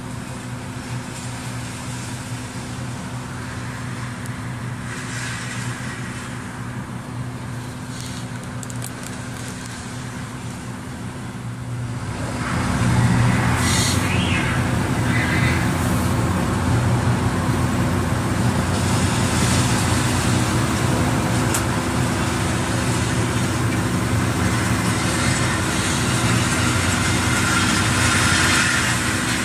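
Dump truck's diesel engine heard from inside the cab, running steadily at first, then getting louder about twelve seconds in as the truck pulls away, and staying loud as it drives along.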